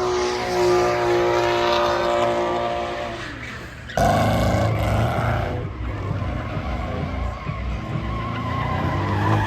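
Drift car engine held at high revs while the tyres skid and squeal through a slide, fading off after about three seconds. About four seconds in the sound cuts abruptly to another stretch of engine running hard with tyre skidding.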